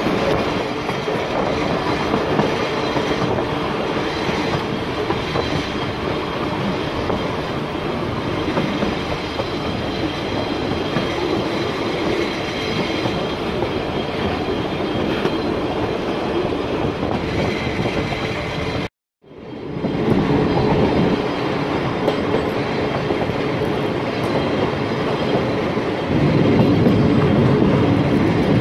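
Little Yellow Train's metre-gauge electric carriages running, heard from an open window: a steady running noise of wheels on the track. It cuts out for about half a second about two-thirds of the way through, then carries on, a little louder near the end.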